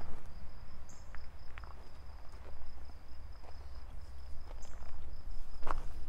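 Footsteps crunching on gravel at an irregular pace, over a steady high-pitched insect buzz and a low rumble.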